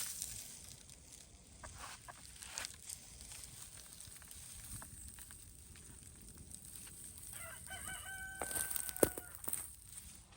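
A rooster crows once near the end, a held call of about two seconds, over faint scratching and rustling. A sharp knock comes as the crow ends.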